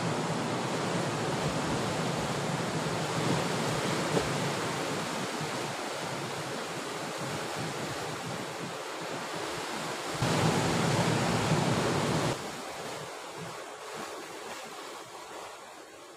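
Sea waves washing against a rocky shore, a steady rushing surf with wind buffeting the microphone. A louder surge rises about ten seconds in and drops off sharply two seconds later, and the surf fades toward the end.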